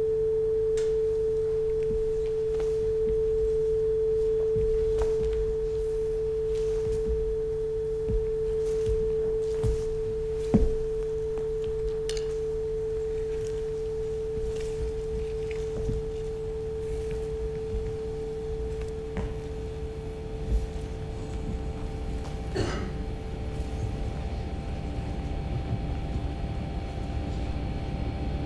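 A single pure, steady tone held for over twenty seconds, fading out about three-quarters of the way through, over a continuous low drone with a few faint clicks.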